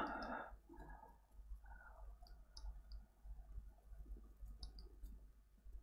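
Faint, scattered short clicks in a quiet room, with a brief breath-like sound right at the start.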